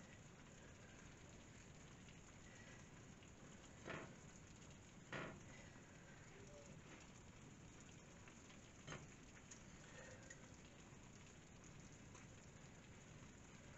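Near silence with a faint steady hiss. Three soft knocks, about four, five and nine seconds in, as squash pieces are pressed into a clay tagine.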